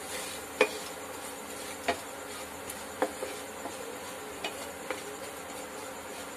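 Coarsely ground whole spices sizzling in hot oil in a nonstick pan while a wooden spatula stirs them, with several sharp knocks of the spatula against the pan, the loudest about half a second in.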